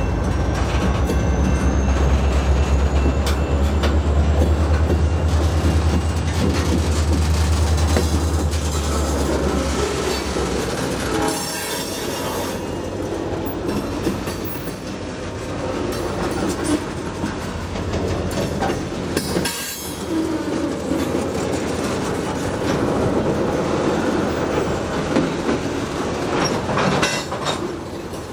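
Diesel freight locomotives pulling a train of grain hopper cars slowly past. A heavy low engine rumble dominates for about the first ten seconds, then eases off, leaving the clatter and squeal of the wheels on the rails.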